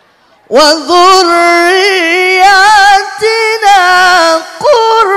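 Quran verse chanted in melodic tilawah style by a single high voice. About half a second in it begins, holding long, wavering ornamented notes with short breaks between phrases.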